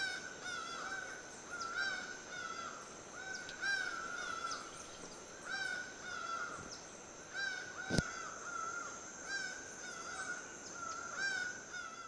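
Laughing falcon calling: a loud call repeated at an even pace, about once every second or two. A single sharp click sounds about eight seconds in.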